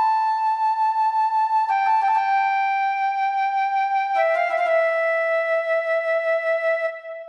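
Korg Kross 2 synthesizer's flute patch playing a slow phrase of long held notes that step down in pitch, each held for one to three seconds, over a softer lower line. The last note fades out near the end.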